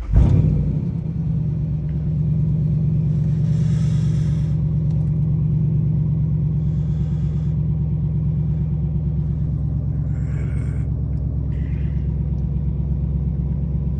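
Jeep Grand Cherokee engine starting: it catches at once with a brief flare in level, then settles to a steady idle. A few short hisses come and go partway through.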